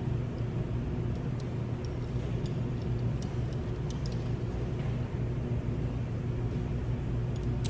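Steady low machinery hum with a few faint, brief clicks over it.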